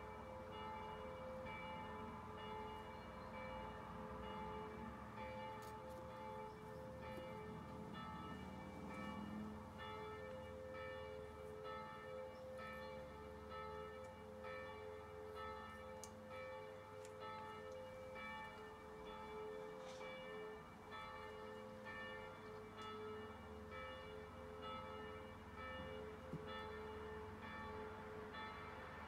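Faint church bells ringing, several bells sounding together with their tones struck again and again throughout.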